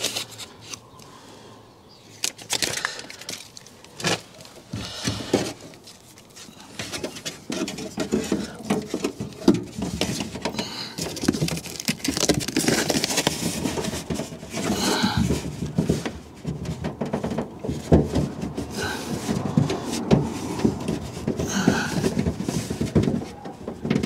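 Irregular rustling and scraping with light knocks and clicks: a hand working a self-adhesive sound-deadening pad behind a car door's foam waterproof membrane and pressing it onto the sheet-metal outer door skin. The handling gets busier about a third of the way in.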